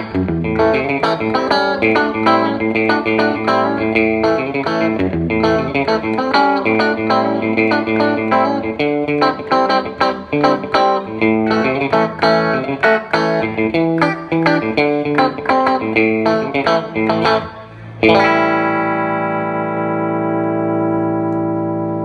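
Stratocaster-style electric guitar played through a Fender The Bends compressor pedal: a run of quickly picked notes, then a chord struck about 18 seconds in that rings on at a nearly even level, the long sustain of the compressor at work.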